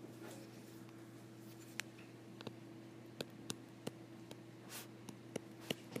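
Stylus tapping and stroking on a tablet screen as numbers are handwritten: a string of short, irregular light clicks, more of them in the second half, over a faint steady hum.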